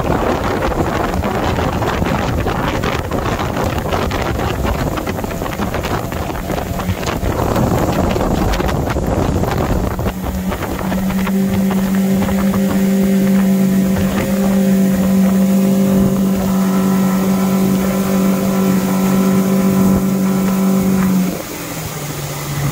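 Outboard motor on a boat at full throttle from a standing start, with wind and water rushing over the microphone. For the first half the rush covers the motor as the boat gets going; then the motor holds a steady high drone for about ten seconds before it drops off sharply near the end.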